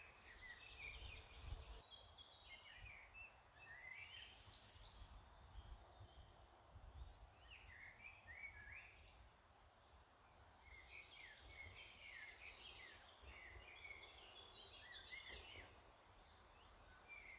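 Faint birdsong: many small birds chirping and trilling in quick notes, over a low rumble of wind on the microphone.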